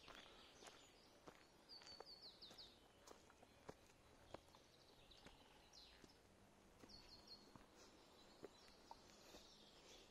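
Songbirds singing quietly in short runs of quick high notes, with a walker's footsteps on a trail ticking faintly about every two-thirds of a second.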